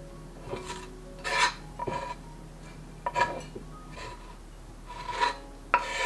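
A knife blade scraping chopped onion and cilantro off a wooden cutting board into a ceramic bowl: several short scrapes, the loudest about a second and a half in and again near the end.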